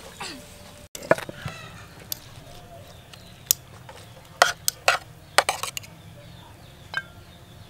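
Metal spoon and fork clinking and scraping on a tray while flaking cooked fish, a scatter of sharp clinks from about three and a half seconds in. Briefly at the start, a ladle scraping in a large metal pot.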